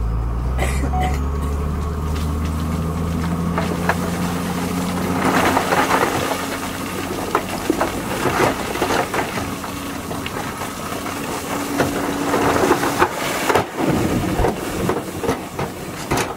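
An 18-ton dump truck's diesel engine revs up, its pitch rising over the first few seconds as the hydraulic hoist lifts the bed. From about five seconds in, the load of crushed stone slides out and crunches down in a dense rattle of many small impacts.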